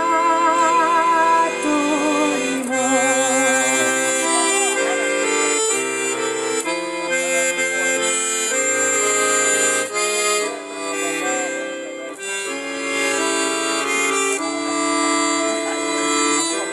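Piano accordion playing an instrumental passage: sustained reedy chords with a melody on top, the chords changing about every second.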